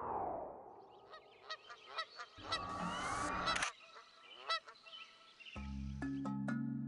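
A flock of large water birds giving short honking calls, many in quick succession. About five and a half seconds in, music begins.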